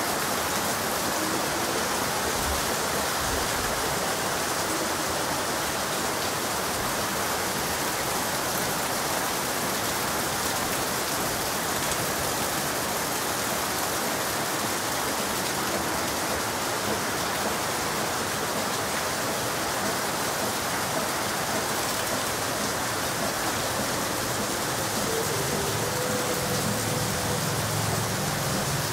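Heavy monsoon rain falling steadily on the ground and roofs, a constant, even hiss that never lets up.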